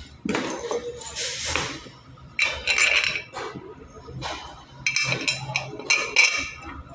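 Metal tools and parts clinking, knocking and scraping irregularly during work on a truck brake booster, with a few sharp metallic strikes.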